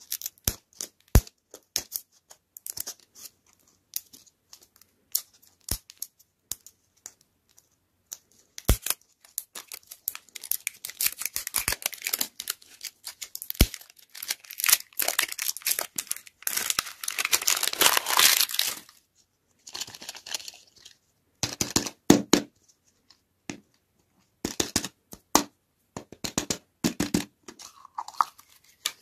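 Plastic wrapper crinkling and tearing as it is peeled off a ball-shaped toy lollipop. Many sharp clicks and taps come from handling the hard plastic shell. The tearing is thickest and most continuous in the middle, and near the end there are scattered taps and thumps.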